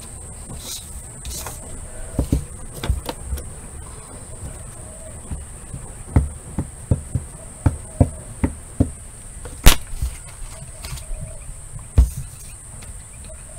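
Light taps and knocks of a wood-mounted rubber stamp and a plastic ink pad being handled on a craft table. There is a quick run of taps about halfway through, one sharp click near ten seconds and a thump near the end, over a steady high-pitched whine.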